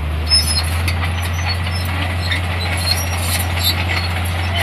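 Diesel engine of a heavy earthmoving machine running steadily with a deep, even drone, with scattered light clicks and squeaks over it.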